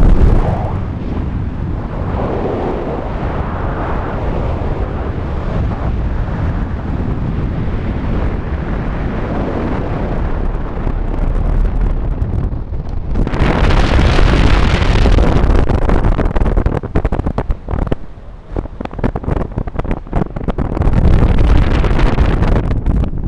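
Strong wind buffeting the microphone in gusts, swelling louder and brighter about halfway through and again near the end, with a brief lull between.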